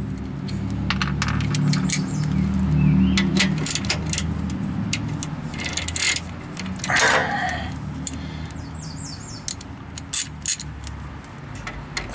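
Metal hand tools clinking as a socket and ratchet are fitted onto a brake caliper bracket bolt: scattered, irregular light clicks over a steady low hum.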